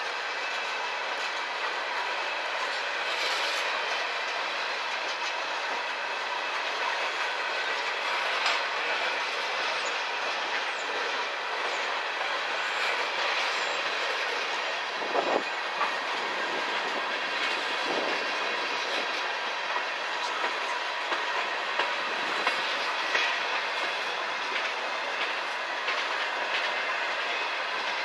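Freight train cars rolling past at track side: a steady rumble and hiss of wheels on rail, broken by scattered sharp clicks as wheels cross rail joints.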